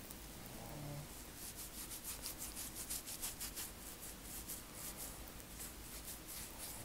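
Fingertips rubbing and scratching the scalp between 4c cornrows in quick, raspy strokes, several a second. They start about a second and a half in and thin out near the end.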